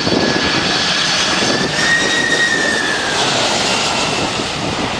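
Boeing 747 jet engines running on low final approach: a loud, steady rushing noise with a high whine that rises and then falls about two seconds in.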